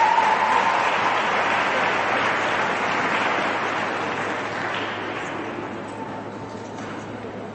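Audience applauding, fading slowly over several seconds.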